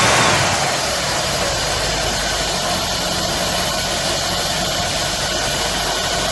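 1963 Cadillac Series 62's 390 V8, heard with the hood open, just after starting. Its revs drop over the first half-second, then it idles steadily.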